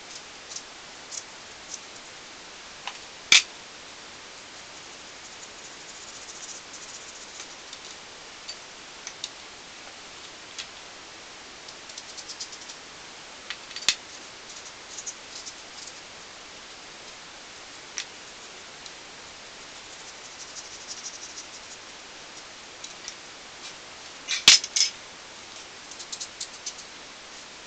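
Knife cutting a melon into cubes over a plate: soft cutting crackles and scattered sharp clicks of the blade against the plate and tray, over a steady hiss. A quick cluster of clicks near the end is the loudest.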